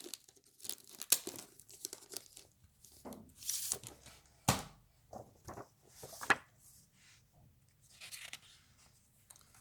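Wrapping being torn and crumpled off a comic book: irregular crinkling with a few sharp rips in the middle, then fainter crinkles near the end.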